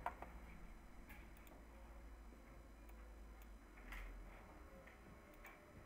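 Near silence with a few faint, irregularly spaced clicks from a computer mouse.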